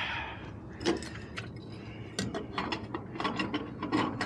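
Irregular small mechanical clicks and ratcheting, about a dozen over three seconds, coming faster in the second half.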